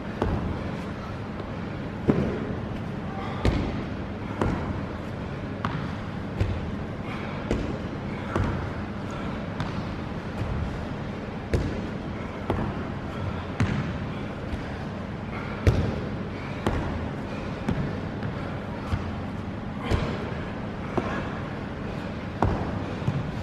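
Box step-ups: shoes landing on a padded plyo box and stepping back down onto a wooden floor, a steady run of thuds about once a second.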